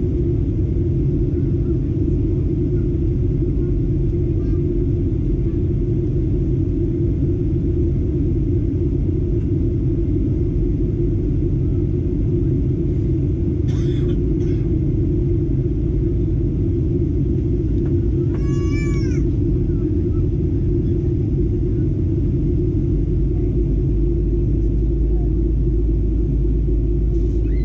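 Steady, loud cabin noise of a Boeing 737-800 in flight, the rumble of its CFM56 engines and the rush of air along the fuselage. A few brief high-pitched calls rise above it, the clearest a little past halfway through and lasting under a second.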